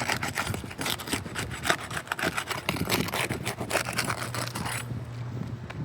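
Rapid, repeated scraping and cracking as a tool is worked under roof shingles to break their adhesive seal, stopping about five seconds in.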